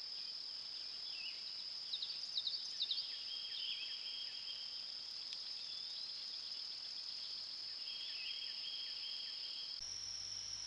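Steady high-pitched drone of insects in summer grass, with short bird chirps and calls over it about two to three seconds in and again about eight seconds in; the chirps are the loudest sounds. Near the end the drone steps slightly higher in pitch and a faint low hum comes in.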